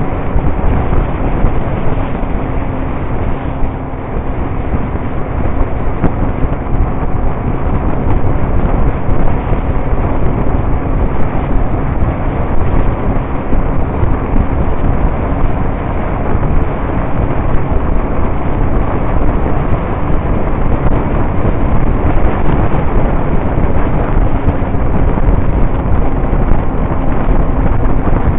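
Steady wind rumble on the microphone of a camera riding on a moving motorcycle, with the motorcycle's engine running underneath as a faint steady hum.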